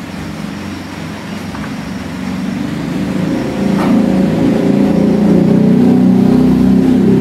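A motor engine running steadily, growing louder about halfway through, with a faint click or two.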